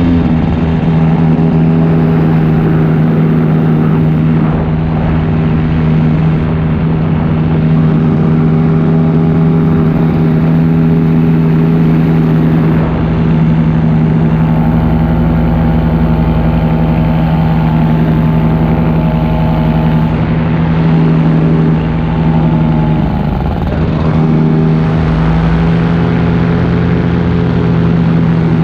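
Paramotor engine and propeller running steadily in flight, with a brief easing of the throttle about 23 seconds in before it settles back to the same steady pitch.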